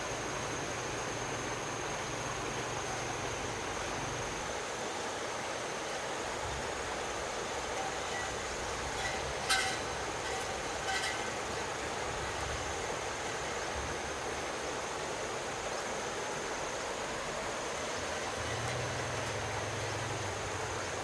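Steady rushing outdoor background noise with a thin, high steady tone and a low hum that comes and goes. Two short knocks with a slight ring sound near the middle.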